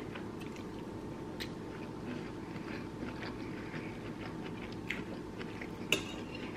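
A person chewing a mouthful of sausage, shrimp and cabbage, with faint soft mouth clicks over a low steady background hum. A metal fork clinks once on the plate near the end.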